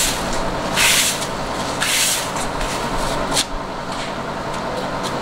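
Broom sweeping the ground in short hissing strokes about a second apart, four of them, stopping after about three and a half seconds. A steady background rumble runs underneath.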